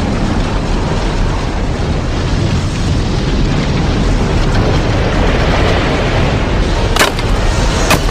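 Tornado sound effect: a steady, dense wind noise with a heavy deep rumble, broken by two sharp cracks near the end.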